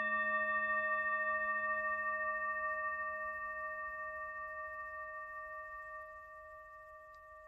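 Tibetan singing bowl ringing out from a single mallet strike: one steady tone with several higher overtones, fading slowly and evenly.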